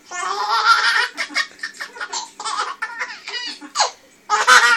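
A parrot laughing in a run of short, high-pitched cackles, mimicking human laughter, with a louder burst near the end.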